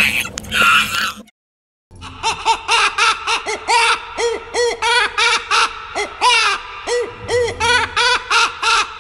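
Creature sound effect for a fictional baby tyrannosaurid. A lost or distress call ends about a second in, followed by a brief dead silence. From about two seconds in comes its aggressive call: a fast run of short chirping calls, each rising and falling in pitch, about two to three a second.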